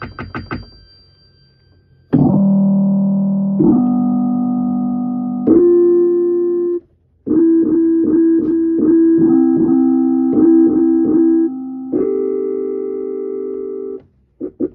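Electric keyboard playing a sustained voice: a few quick short notes at the start, then held chords that change every second or two, with a short break about halfway and a run of repeated notes over held tones before the notes stop near the end.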